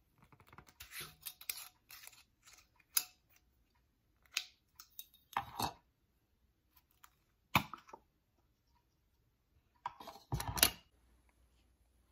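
Metal screw lid being twisted off a glass mason jar and the jar being handled: a run of small irregular clicks and scrapes, with louder knocks about three, five and a half and seven and a half seconds in, and the loudest cluster at about ten and a half seconds.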